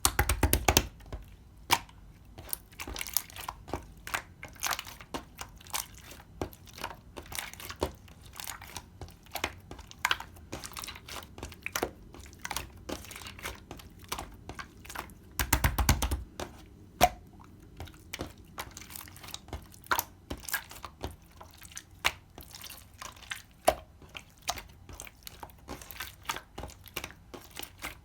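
Hands playing with clear slime: a steady run of sticky pops and crackles as it is pressed, folded and stretched, with two louder bursts of squishing, right at the start and about halfway through.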